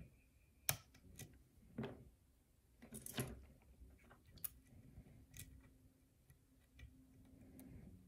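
Quiet, irregular clicks and ticks of a hook pick working the pins and keyway of a five-pin lock cylinder held under tension, about a dozen sharp ticks spread unevenly, over soft handling noise.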